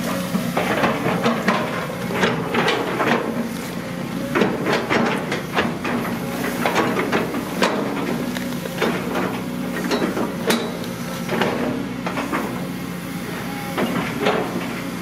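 Long-reach hydraulic excavator's diesel engine running steadily under work, with frequent irregular sharp clicks and knocks over it.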